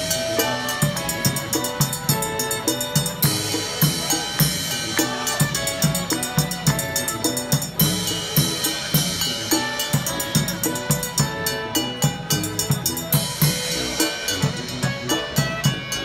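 Live street-band music: clarinet and tuba over a Japanese chindon drum rig of gong, small drums and bass drum, with cymbal, keeping a busy, steady beat.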